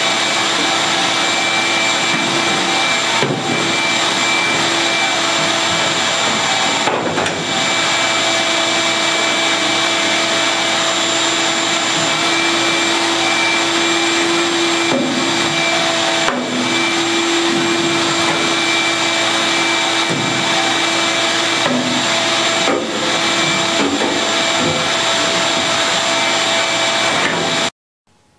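Shop vacuum running steadily, its nozzle sucking debris off a steel pickup bed floor, with a few brief changes in its sound along the way; it cuts off suddenly near the end.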